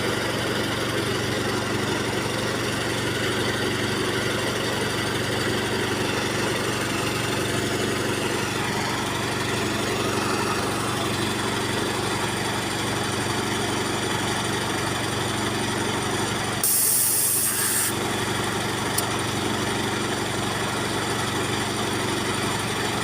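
A motor running steadily with a low, even hum. About seventeen seconds in, a short burst of hissing air cuts across it for about a second.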